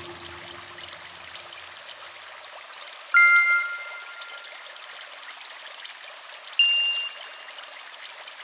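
Synthesized shimmer UI sound effects over a steady airy hiss. A bright two-tone chime sounds about three seconds in and rings out. A higher, shorter chime follows a little before the seven-second mark.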